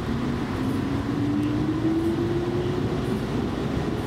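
Electric commuter train running, heard from inside the carriage: a steady rumble with a whine that rises smoothly in pitch.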